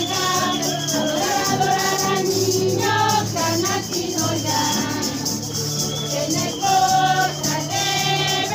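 A group of voices singing a religious procession song together, with shaken rattles keeping time.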